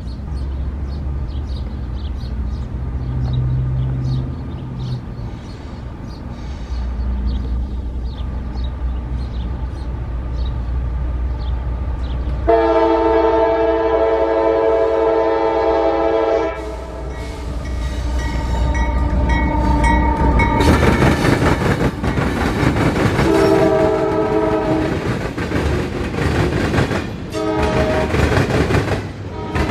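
GE diesel freight locomotives approach, their engines a low rumble. About twelve seconds in, the air horn sounds a long, long, short, long pattern, the standard grade-crossing signal. From about twenty seconds in, the wheels of the passing freight cars add a loud rattling clatter.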